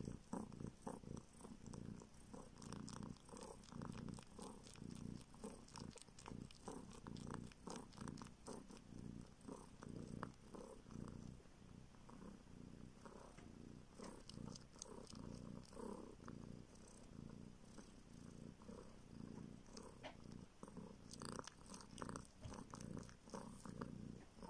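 Kitten purring steadily in soft rapid pulses, with small irregular sucking clicks as it suckles.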